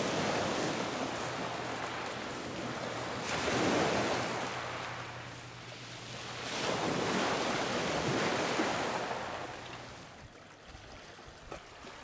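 Small waves breaking and washing up a pebble beach, the surf swelling and fading in three surges a few seconds apart, then quieter near the end.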